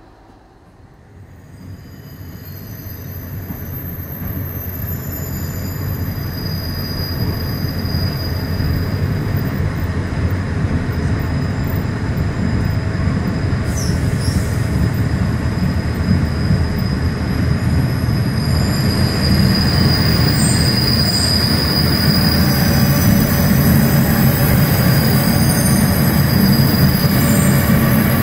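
Clayton CD40 diesel locomotive heard from its cab while travelling on the rails, a steady rumbling running noise with high wheel squeal on top. It grows louder over the first few seconds and carries a brief sharp screech about halfway through.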